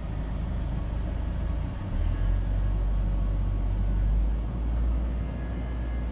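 Pickup truck engine idling and the air-conditioning blower running, just after the AC is switched on, the system freshly fitted with a new compressor, dryer and orifice tube and recharged. A deeper low rumble comes in about two seconds in.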